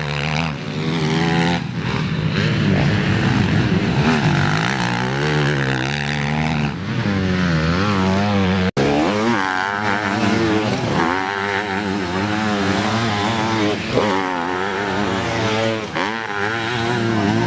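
Off-road racing motorcycle engines revving hard, their pitch rising and falling with throttle and gear changes as the bikes race by, with a sidecar outfit's engine near the end. The sound breaks off abruptly for an instant about nine seconds in and resumes.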